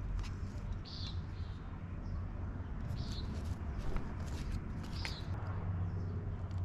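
A bird chirping a short call about every two seconds, over a steady low hum, with small clicks and rustles from insulated wire leads being handled.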